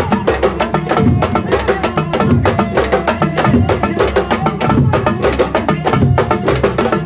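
Music driven by fast, dense drumming: quick sharp strikes one after another, with pitched sounds running over them.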